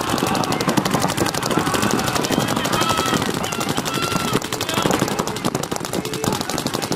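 Paintball markers firing in rapid strings, several guns at once, a dense fast crackle of shots that keeps going throughout.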